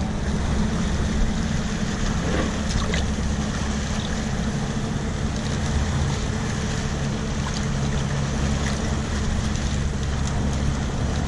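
Boat underway: the engine running steadily as a low drone with a few steady hum tones, mixed with the rush of wind and water.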